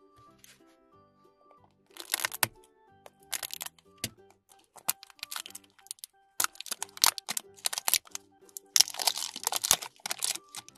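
Plastic shrink-wrap label being picked at and peeled off a plastic toy egg capsule: irregular bursts of crinkling and crackling from about two seconds in, over soft background music.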